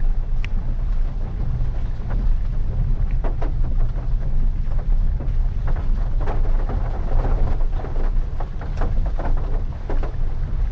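Maruti Ignis reversing slowly over a wet, rough dirt road, heard from inside the cabin: a steady low rumble of engine and tyres, with scattered short taps and knocks.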